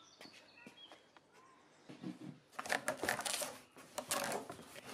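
Faint clicks and rattles of handling, clustered in the second half, with a few faint bird chirps in the first second.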